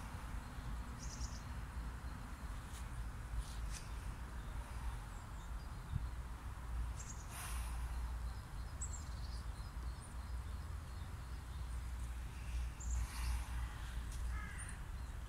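Outdoor ambience: a steady low rumble under scattered short bird calls, with a couple of brief harsher calls, one about halfway through and one near the end.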